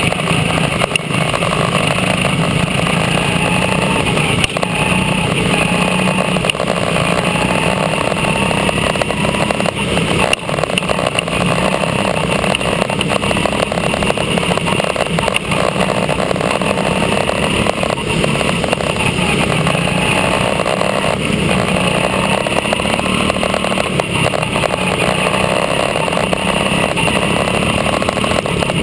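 Quarter midget race car's small single-cylinder engine running hard at racing speed, heard up close from on board, its pitch rising and falling slightly.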